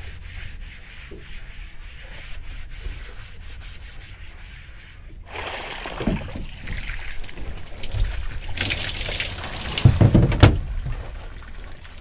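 Water sloshing and pouring from a plastic bucket: a sudden rush about five seconds in, then a second, louder pour a few seconds later with low knocks of the bucket, ending abruptly.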